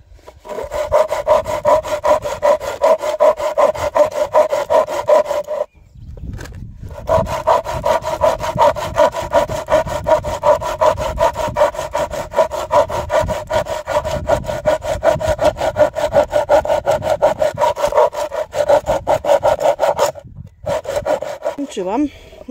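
Hand saw cutting across an old wooden plank by hand, in quick, even back-and-forth strokes about three a second with a steady ringing note. There is a short pause about six seconds in, and the sawing stops about twenty seconds in as the board is cut through.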